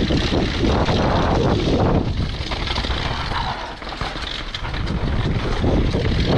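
Mountain bike running fast down a dirt forest trail: wind rushing over the camera microphone, tyres on loose dirt, and the bike rattling over the bumps, a noise from a loose cassette.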